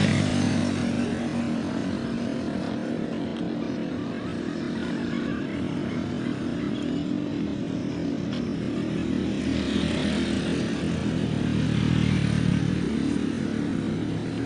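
A vehicle engine running steadily under a noisy rush, growing a little louder about ten seconds in.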